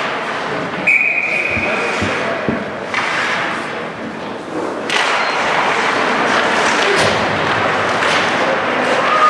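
Ice hockey play in a rink: scattered thuds and sharp knocks of the puck, sticks and players against the boards and ice, with a short steady high tone just after a second in and busier rink noise from about halfway through.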